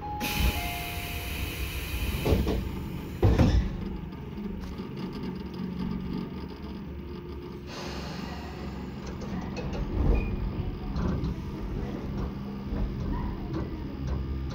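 Inside a Tobu 10030 series electric train: a two-note falling chime and a hiss of air, then the sliding doors thudding shut twice, about two and three seconds in. The car's steady low equipment hum follows.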